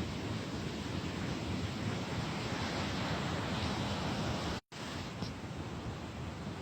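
Wind buffeting the microphone outdoors, a steady rushing noise with gusty low rumble, cutting out completely for a split second about four and a half seconds in.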